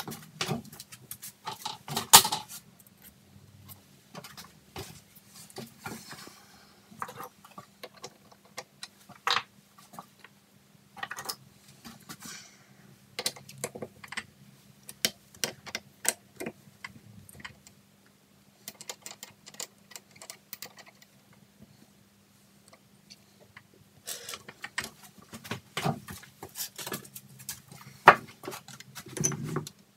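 Scattered metallic clicks, taps and knocks from hands working at a stopped lathe's four-jaw chuck and handling small steel parts and tools, busiest at the start and again near the end, over a faint steady hum.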